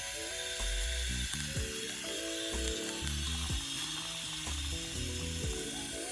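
Background music: a melody in stepped notes over a low bass line with a soft beat about once a second, laid over a steady hiss.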